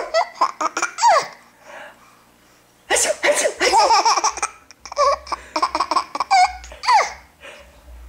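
Baby laughing in repeated giggling bouts: a short burst at the start, a brief lull, then longer bouts from about three seconds in.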